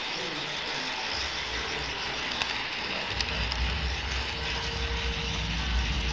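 HO-scale model trains running on a layout: a steady mechanical hiss with a few light clicks, and a low rumble that comes in about three seconds in.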